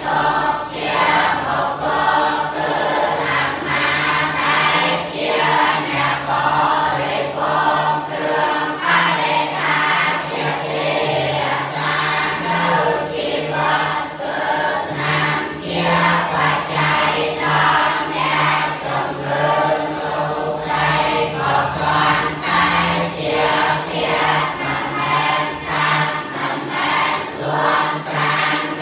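A large group of young Buddhist novice monks chanting together in unison, a steady, continuous flow of syllables on a mostly level pitch.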